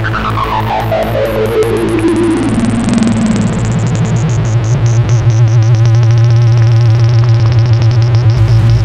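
Electronic background music: a synthesizer sweep falling in pitch over the first three seconds, over a steady low drone and a pulsing beat that grows louder.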